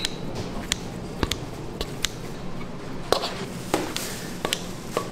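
Kitchen scissors snipping through a bowl of shredded seasoned chicken: short, sharp snips at an uneven pace, about two a second, over a steady low kitchen hum.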